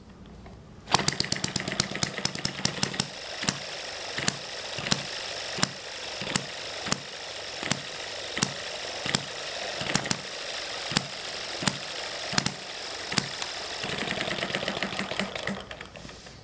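Upgraded Eachine ET1 (M90) single-cylinder hit-and-miss model engine, hand-flipped, catching about a second in. It fires a quick run of strokes, then settles into single sharp pops roughly every 0.7 s with coasting strokes between, over a light mechanical clatter. A faster run of firing comes near the end.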